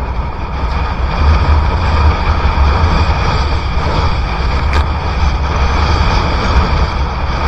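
Strong wind buffeting the microphone while windsurfing at speed in typhoon winds: a heavy, steady low rumble with a hiss over it.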